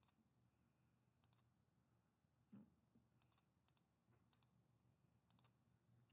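Faint computer mouse button clicks, about six of them at irregular spacing, each a quick press-and-release pair.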